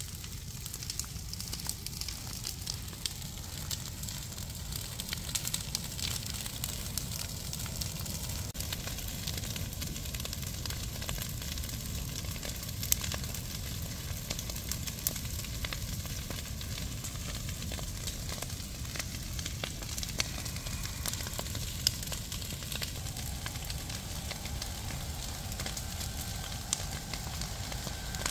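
A large bonfire of cut branches and brush burning, crackling and popping all through, with a few sharper pops standing out.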